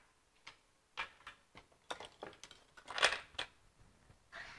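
Plastic refrigerator parts and their wires being handled and set down on a wooden bench: scattered light clicks and knocks, with a louder clatter about three seconds in.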